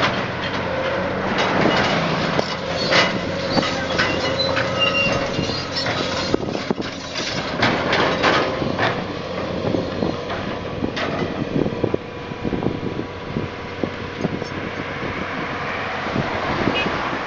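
Excavator engine running under load with a wavering hydraulic whine, and repeated sharp knocks and clanks of stone and steel as the stone is lifted off a flatbed.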